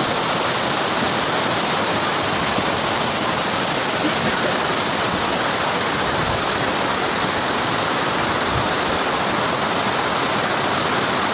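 Rocky mountain stream rushing and splashing over boulders: a steady, even rush of water.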